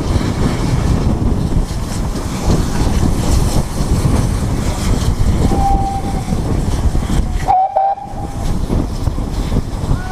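Steam train running, recorded from the top of the locomotive, with a heavy rumble of wheels and wind on the microphone. A steam whistle gives two short blasts, one about halfway through and another a couple of seconds later.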